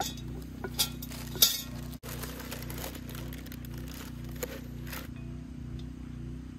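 A cast-iron Dutch oven and its wire bail handle clinking and knocking as the pot is handled, with a few sharp clinks in the first second and a half and lighter taps after. A steady low hum runs underneath.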